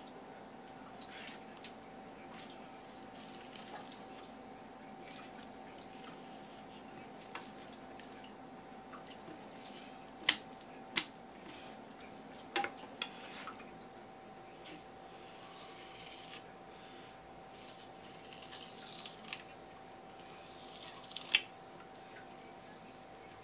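Kitchen knife filleting a whole isaki (chicken grunt) on a wooden cutting board: quiet slicing and scraping through the flesh, with a few sharp clicks of the blade against the board and bones, the loudest around ten and twenty-one seconds in.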